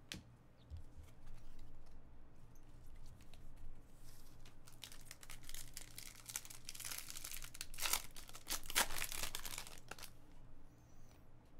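Foil trading-card pack being torn open and its wrapper crinkled: a soft rustle at first, then a dense stretch of crackling from about five seconds in, loudest near the end before it stops.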